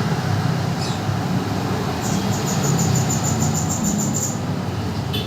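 A lovebird gives a short falling chirp about a second in, then a rapid high trill of about seven notes a second lasting a couple of seconds, a young bird still learning its song. Under it runs a steady low rumble.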